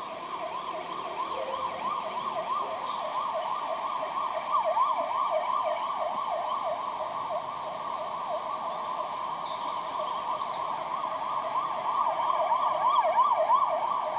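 Several emergency-vehicle sirens sounding together in a fast up-and-down yelp, overlapping, growing somewhat louder near the end.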